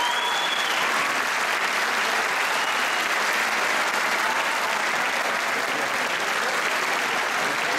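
Large audience applauding steadily after a performance.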